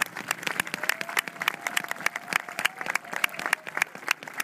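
A large seated audience applauding: many hands clapping steadily outdoors.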